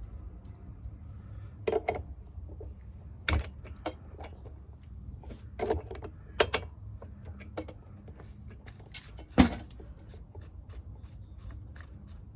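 Scattered small metallic clicks and taps of hand work on a small ATV carburetor as the screw top holding the throttle cable is loosened. A sharper click comes about nine and a half seconds in, over a faint steady low hum.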